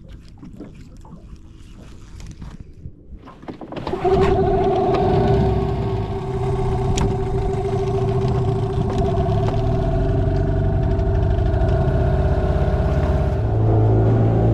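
Faint handling clicks, then about four seconds in a small boat's outboard motor starts abruptly and runs steadily, changing its note near the end as the boat gets under way.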